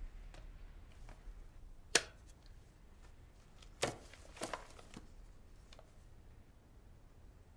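A few sharp clicks and knocks in a quiet small room. A single loud click comes about two seconds in, then a cluster of clacks near the middle as a clipboard is lifted off its metal wall clip, with faint ticks between.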